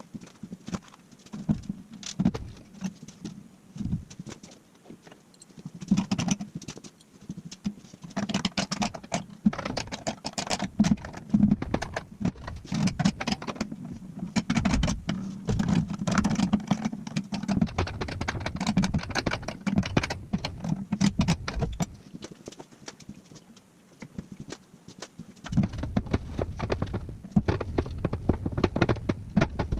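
Irregular knocks, taps and rattles of parts being handled and shifted while a race seat is fitted into a vehicle, busiest in the middle and again near the end.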